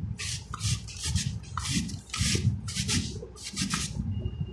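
Raw potato being grated by hand on the coarse stainless-steel grating side of a fold-up 4-in-1 grater: a rasping scrape on each stroke, about two strokes a second, stopping shortly before the end.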